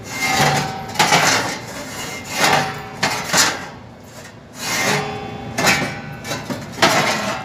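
Galvanized sheet-metal blades of a louvered volume damper being swung open and shut, scraping against the frame in a series of rasping strokes about once a second. The blade ends rub on the frame, which makes the damper hard to close.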